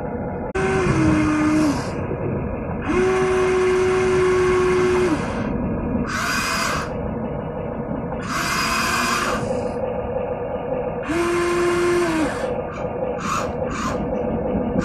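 Electric motors of a Huina radio-controlled excavator whining in bursts as its tracks and boom move: five bursts of a second or two each, then three brief ones near the end, over a steady hum.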